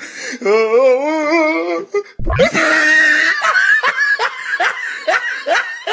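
A person laughing: first a long quavering giggle, then, after a short low thump about two seconds in, a run of loud rising 'ha' bursts about three a second.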